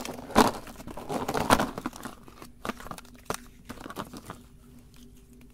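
Paper wrappers of mini ice cream cones crinkling as they are handled and picked up off a plate. There are two sharp snaps, about half a second and a second and a half in, and the crinkling thins to scattered clicks after about two seconds.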